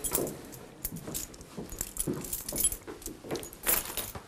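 Irregular clicks, knocks and rustles of a person moving about a small room: footsteps on wooden floorboards and papers being handled, loudest a little before the end.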